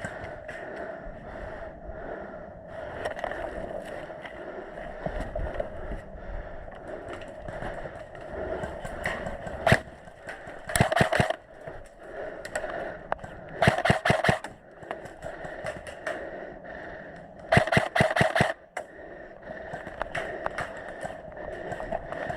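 Airsoft electric gun (AEG) firing short bursts of rapid clicks, three bursts of under a second each, after a single shot about ten seconds in.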